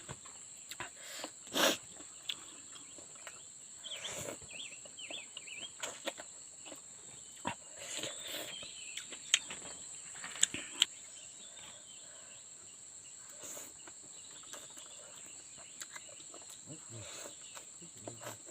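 A steady high insect drone, like crickets chirring, with scattered short rustles and sharp clicks on top.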